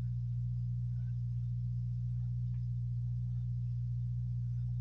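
Steady low electrical mains hum at constant loudness, with a few very faint clicks.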